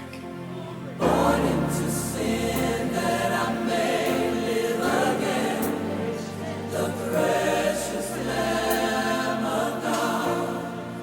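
Gospel music with a choir singing over a bass line, coming in fuller about a second in.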